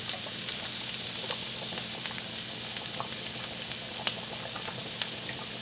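Meat sauce of ground beef, onions, mushrooms and tomato pasta sauce sizzling steadily in a frying pan, with a few light clicks as a spatula stirs it.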